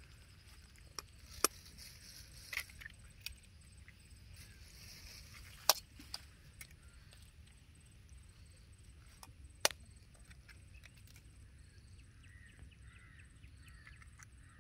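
Knife blades tapping raw eggs open: a handful of sharp cracks at irregular intervals over quiet outdoor background.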